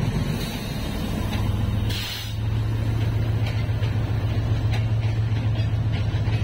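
Diesel locomotive engine running with a steady low hum. About two seconds in comes a short hiss of air, and a few faint clicks follow.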